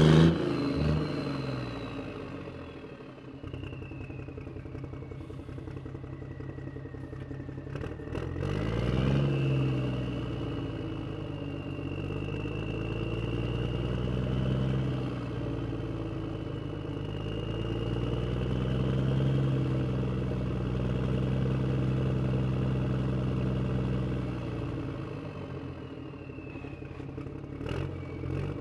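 Electric motors and gearboxes of a Huina remote-control toy excavator running as the boom, arm and bucket work. The pitch rises and falls in long swells, over a higher whine that slides up and down.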